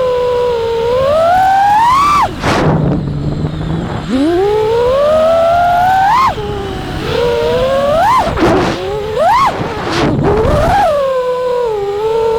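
Brushless motors of a 5-inch FPV quadcopter (T-Motor F60 Pro IV 1750kv on three-blade props) whining, their pitch climbing with each throttle punch and dropping off again several times. Short gusts of wind noise on the microphone come between the punches.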